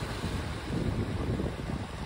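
Small sea waves washing over a beach of rounded cobbles, the stones rolling and clattering in the water, with wind on the microphone.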